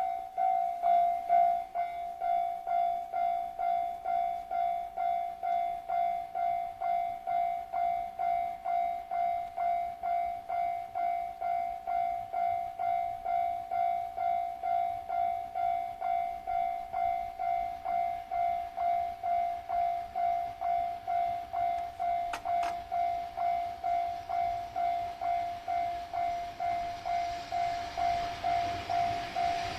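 Japanese level crossing's electronic warning bell ringing, an even pitched ding repeating a little over twice a second, signalling that a train is coming. Near the end the rumble of the approaching train rises under it.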